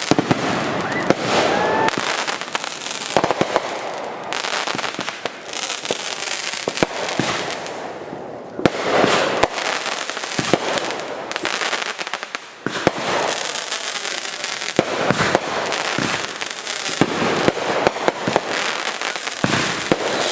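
Consumer aerial fireworks firing continuously: a dense run of launch pops and bursts with heavy crackling. A few short rising whistles come about a second in.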